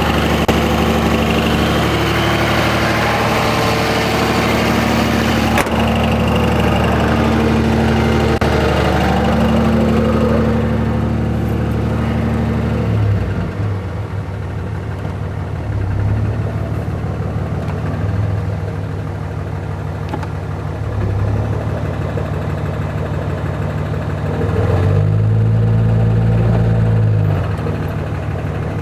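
5.9-litre Cummins turbo-diesel in a 2004.5 Ram 2500 running in gear under load, with a knock the owner suspects is a rod knock. The engine is louder and busier for the first half, then eases off, and its pitch and loudness rise briefly near the end.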